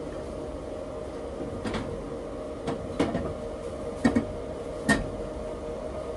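A metal inverter front cover panel knocking and clacking against the chassis about five times as it is fitted back on and pressed into place. Under it is a steady hum from the running inverter.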